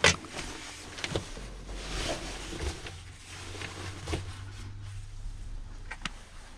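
Handling noises in a small car's cargo area: a sharp knock at the start, a few more knocks and some rustling as a fabric carry bag is brought in and set down on the floor. A low steady hum runs underneath.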